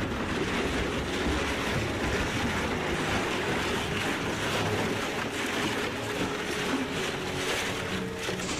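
Industrial plastic shredder running: a steady machine noise with dense crackling as its bladed rollers break up large plastic items.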